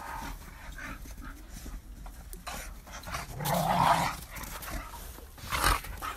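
Two Staffordshire bull terriers play-fighting, panting, with a louder vocal burst about three and a half seconds in.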